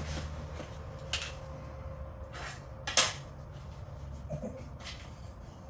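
Sharp clicks and knocks of a light fixture and its screws being worked loose and pulled out of a fiberglass camper shell, the loudest knock about three seconds in, over a low steady hum.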